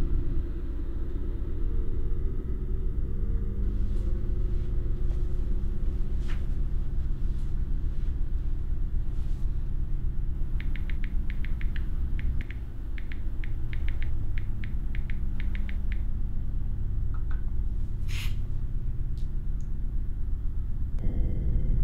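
Smartphone keyboard tapping: a quick run of light clicks in the middle, over a steady low drone. A single short swish comes about two seconds before the end, around when a new message appears.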